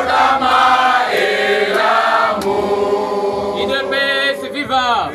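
A crowd of people singing a chant together, voices held on long notes.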